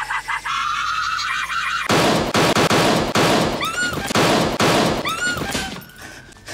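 A high-pitched scream, then about two seconds in a loud, harsh, distorted burst of rapid gunfire for about four seconds, fading near the end.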